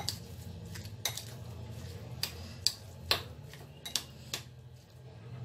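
Metal spoon stirring a ground-chicken filling in a glass bowl, clinking against the glass about seven times at irregular intervals; the clinks stop about four and a half seconds in.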